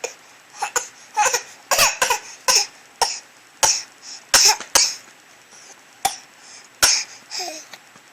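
Baby making a string of short, sharp cough-like vocal noises, about fifteen brief bursts that stop about seven and a half seconds in.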